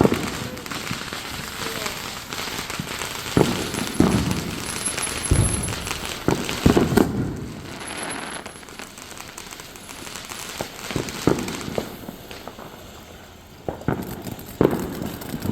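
Fireworks going off: a string of sharp bangs at irregular intervals, thickest in the middle, with crackling in between.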